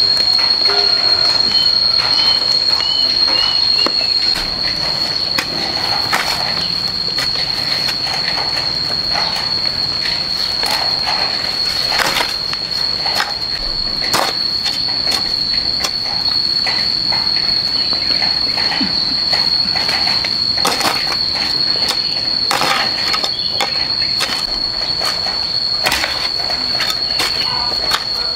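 Insects droning outdoors: one steady high-pitched whine that never breaks. Scattered short clicks and knocks from handling or work sound over it.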